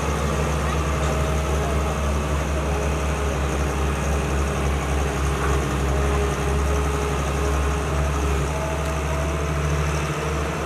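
Diesel engine of a Caterpillar 320 tracked excavator running steadily under work as the machine digs and swings.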